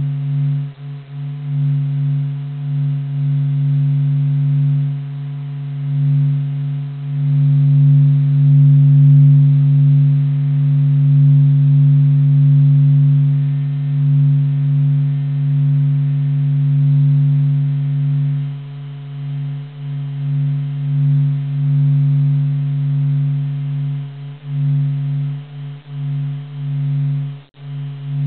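NASA sonification of the Sun's vibrations: a low, steady humming drone with fainter steady tones above it. It swells and dips in loudness and grows more unsteady over the last few seconds.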